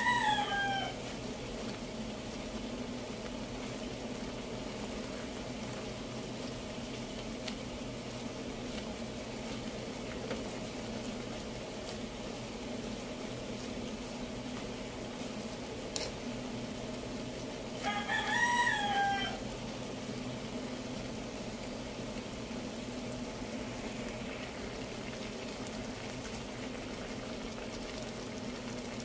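A rooster crows twice, once right at the start and again about 18 seconds in, each crow rising and then falling over about a second and a half. A steady low hum runs underneath.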